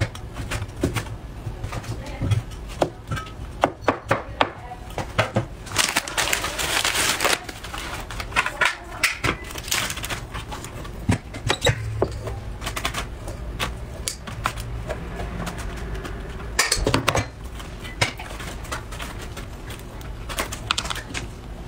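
Irregular taps and knocks of hand work on a plastic cutting board, with a cleaver and a plastic sushi-mold kit being handled, and a stretch of rustling noise about six seconds in.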